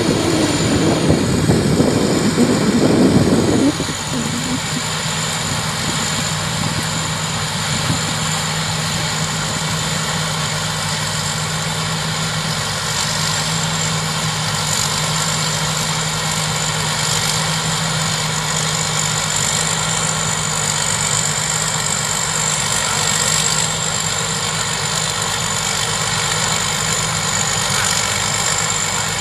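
Combine harvester's engine and machinery running steadily, with a constant high whine over the engine drone. It is louder and rougher for the first four seconds, then settles.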